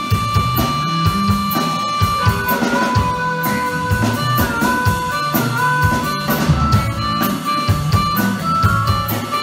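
Live blues band: a harmonica cupped to the microphone holds one long note, then moves between shorter held notes after about two seconds, over an electric guitar riff and a drum kit keeping a steady beat.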